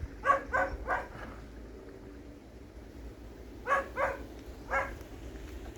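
A dog barking: three quick barks at the start, then three more after a pause of about three seconds.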